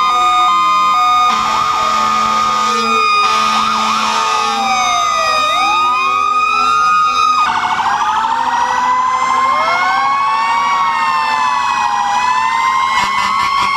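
Several fire engine sirens sounding at once, their wailing pitches rising and falling out of step with one another. About halfway through, one switches to a fast warbling yelp.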